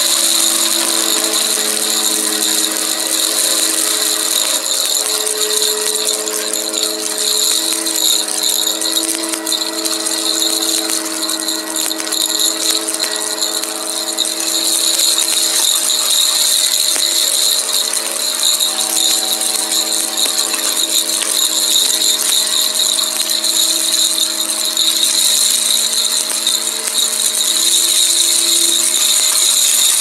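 Shark upright vacuum cleaner running steadily, its motor whining over a strong rushing hiss of air, with a dense crackle as dry granular debris and glitter are sucked up from the rug.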